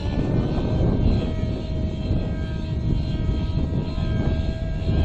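Nitro RC helicopter's two-stroke glow engine (MAX-55HZ-R) running steadily through an MS55-3D ZERO.SP tuned muffler, a high, even engine note over a rough low rumble from the rotor as the helicopter flies low.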